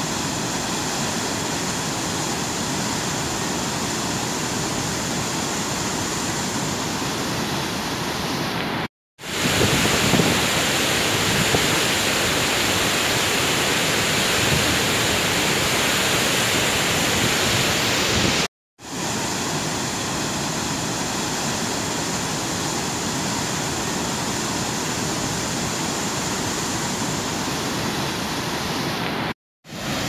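Water pouring through a dam's open spillway gates and churning in the river below: a loud, steady rush. It cuts out briefly three times, and the stretch between the first two cuts is louder and brighter.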